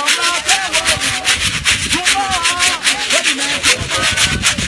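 Church choir of many voices singing over a fast, steady swishing beat of about five strokes a second.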